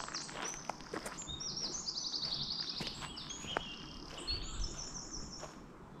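A songbird singing a long, fast, high song of rapid note runs and trills, with footsteps on the path now and then.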